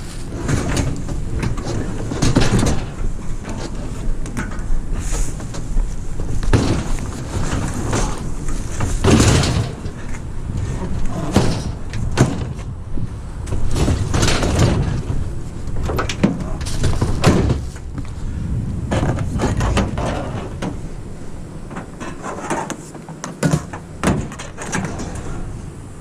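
Heavy scrap items being handled and loaded: a run of irregular bangs, knocks and scrapes of metal and appliances over a steady low rumble.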